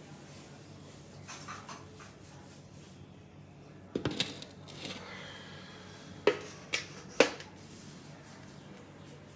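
Scattered knocks and clinks of steel kitchen vessels being handled: a short cluster near the middle, then three sharp knocks about half a second apart, over a faint steady hum.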